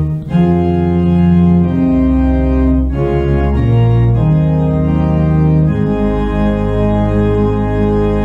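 Church organ playing slow sustained chords, the closing music after the benediction; the chords change every second or so, then settle on one long held chord about six seconds in.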